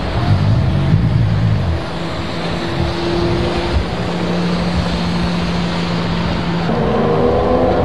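Racing car engines running at a wet race track: a steady engine drone over a noisy hiss, with new engine tones coming in near the end.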